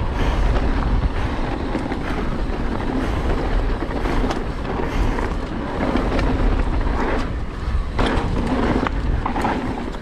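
Mountain bike riding fast down a rough trail: tyres rumbling over dirt and rock, with frequent short clattering knocks from the bike over the bumps and heavy wind noise on the microphone.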